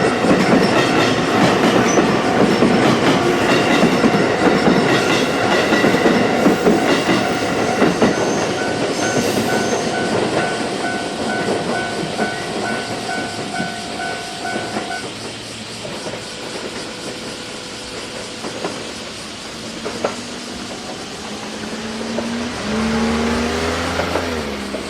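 JR West 223 series electric train passing over a level crossing, its wheels clattering over the rail joints, while the crossing's warning bell rings steadily. The train fades and the bell stops about fifteen seconds in; near the end a whine rises and then falls.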